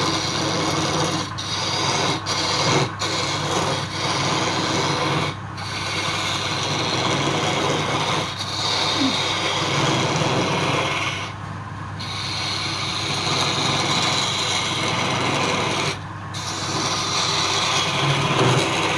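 Wood lathe running with a tool scraping against the spinning wood: a steady hiss of cutting over the motor's low hum. The tool lifts off briefly about eleven seconds in and again about sixteen seconds in.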